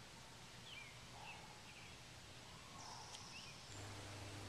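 Faint woodland ambience with a few short, high bird chirps scattered through it. A low steady hum comes in near the end.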